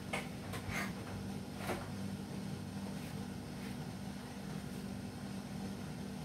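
A steady low hum from a running appliance, with a few light knocks in the first two seconds.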